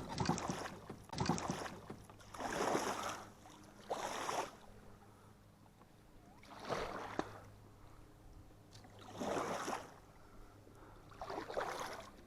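Water splashing and swishing around a kayak in repeated bursts, one every one to three seconds.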